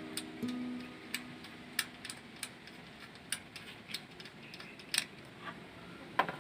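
Scattered sharp clicks and light taps of hand tools and parts being handled while ignition coils are pulled from a car engine, about a dozen at uneven intervals. Background music fades out in the first half second.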